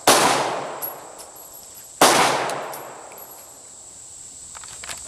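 Two .44 Magnum revolver shots about two seconds apart, each sharp crack followed by a long echoing fade.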